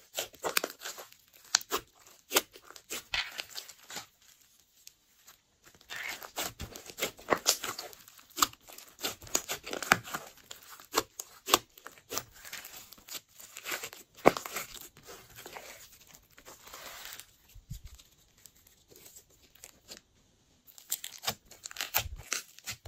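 Glossy slime squeezed, stretched and kneaded by hand, giving a dense, irregular run of sharp crackles and pops as air pockets in the slime burst. Near the end the crackling stops briefly and then resumes.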